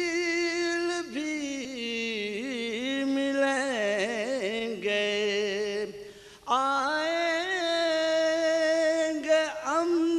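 A man singing an Urdu devotional qaseeda solo, holding long ornamented notes. He breaks off briefly about six seconds in, then takes up a new long note.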